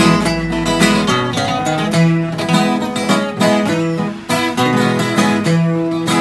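Two acoustic guitars, one a twelve-string, playing an instrumental passage of picked melody notes over strummed chords, with no singing.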